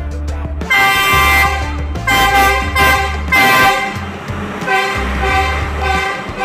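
Sri Lankan diesel passenger train's horn sounding in several loud blasts in quick succession, over the low drone of its diesel engine as it rolls in alongside the platform.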